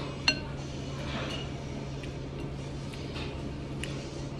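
A spoon clinks once against a ceramic soup bowl, a short ringing strike about a third of a second in, followed by a few fainter taps and scrapes.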